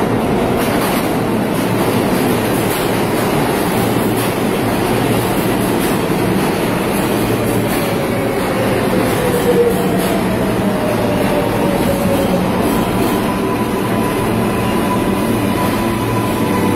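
Subway train running past a platform close by: a steady loud rumble and rattle of the cars. A pitched whine falls in pitch near the middle, and a steady high whine holds through the second half.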